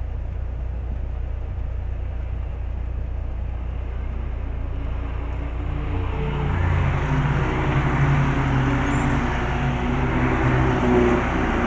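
A steady low hum inside a recovery truck's cab. About halfway in, the engines of touring race cars come in as the cars go past close by, several engine notes over one another, getting louder.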